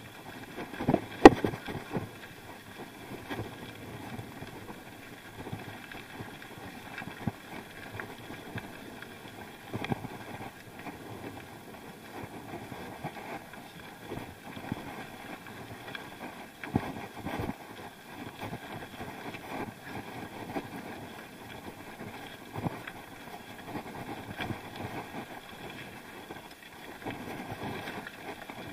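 Bicycle rattling over a rough unpaved track, with irregular knocks and clicks and a sharp knock about a second in, over steady wind noise.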